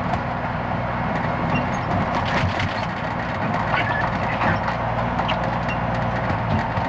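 Dump truck on the move with an empty dump box: the diesel engine runs steadily under scattered rattles and knocks from the truck body.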